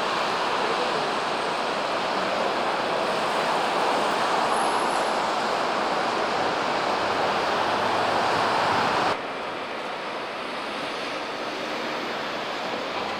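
Steady, even roar of city street traffic with no single engine or horn standing out. About nine seconds in it cuts abruptly to a quieter steady noise.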